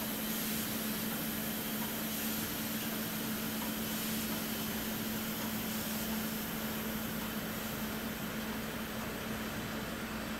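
Steady machine hum in a large hall: a constant low tone over an even hiss, unchanging throughout.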